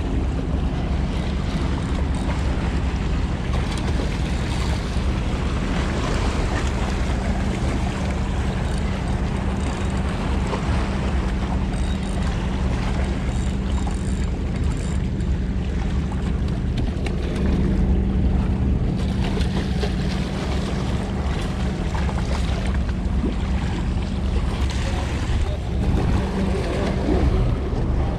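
Wind buffeting the microphone over waves washing against rocks, with a steady low hum underneath.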